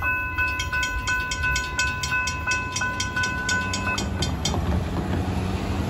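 Railroad grade-crossing bell ringing at about three strikes a second, then stopping about four seconds in as the gates go up after the train has cleared. Cars then drive across the tracks under a low rumble of traffic.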